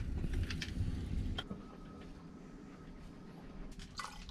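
A low rumble with a few light clicks, then, near the end, coffee starts pouring from a stainless steel French press into a metal tumbler.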